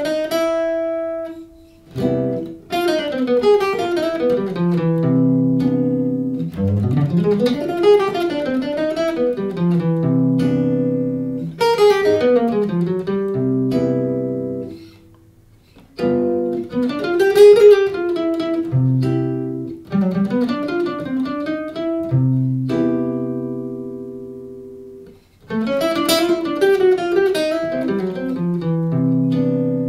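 Gibson hollow-body archtop guitar playing jazz dominant phrases over G7, melodic lines mixed with chords. The phrases break off briefly about two, fifteen and twenty-five seconds in.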